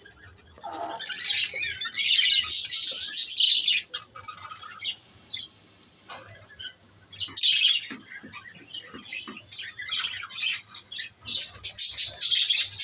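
Lovebirds chattering and squawking: rapid, shrill calls in several loud bouts, with short quieter lulls between.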